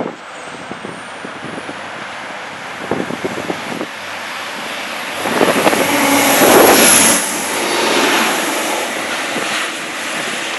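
Arriva Trains Wales Class 175 diesel multiple unit going by along the platform. Its running noise swells to a peak as the train passes close by, then eases off.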